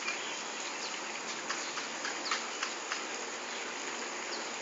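Steady outdoor insect chorus, a dense high hiss, with a few short chirps scattered through the middle.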